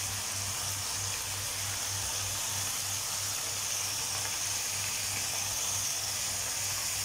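Cluster beans frying in a nonstick kadai on a gas stove: a steady high sizzling hiss, with their cooking water almost boiled off.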